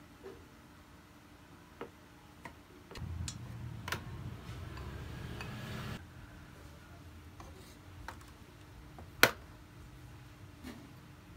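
Kitchen handling at an electric rice cooker: scattered light clicks and taps, a few seconds of rustling and scraping as cooked rice is scooped out, and one sharp snap about nine seconds in as the cooker's lid is shut.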